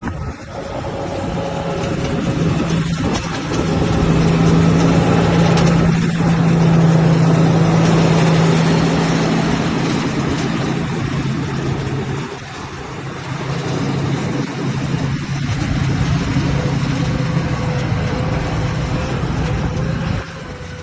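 Heavy machinery's diesel engine running steadily, a low hum that swells and eases a little.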